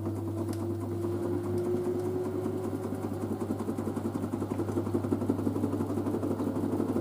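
LG DirectDrive washer-dryer drum turning in its pre-spin balance check, with the direct-drive motor whining at a slightly rising pitch over a steady low hum. A rapid pulsing from the turning drum and load grows gradually louder.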